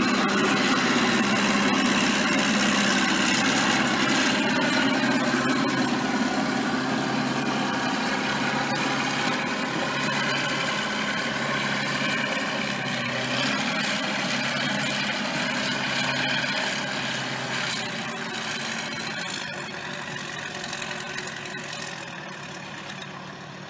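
Caterpillar 922 wheel loader's diesel engine running as the machine pulls away across packed snow. The engine sound is steady at first, then fades over the last several seconds as the loader moves off.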